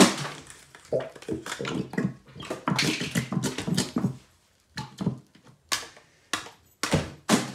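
Plastic glitter bottles shaken over the slime, glitter rattling out in a run of irregular shakes and taps, with a few separate sharp shakes near the end.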